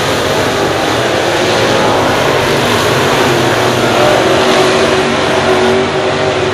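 A pack of dirt late model race cars running laps on a dirt oval, several engines going at once as a steady, loud drone, swelling slightly about four seconds in as cars come through the near turn.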